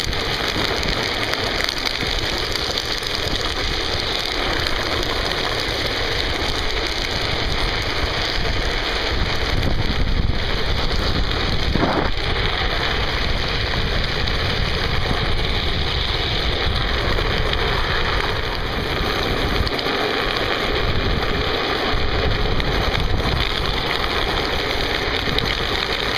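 Wind rushing over the microphone of a camera mounted on a coasting drift trike, mixed with the steady hiss of its wheels running on asphalt. A single faint knock about twelve seconds in.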